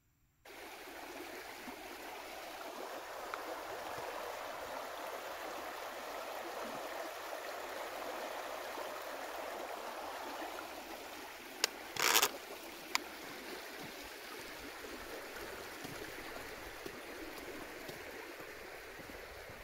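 Small forest stream rushing steadily over stones below a bridge. About twelve seconds in there are a few sharp clicks and a brief crackle, after which the rush is slightly fainter.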